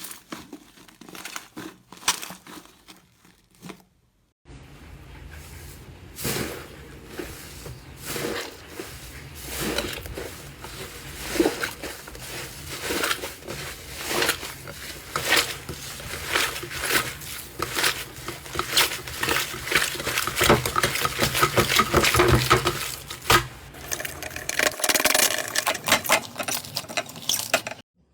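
Slime being squished and pressed by hand, with dense, irregular small crackles and pops; a short gap about four seconds in, after which the crackling grows busier and louder.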